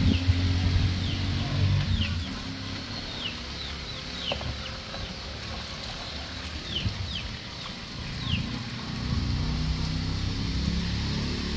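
Chickens peeping: about a dozen short, high, falling peeps, spread from about a second in to about eight seconds in, over a low rumble that is stronger near the start and the end.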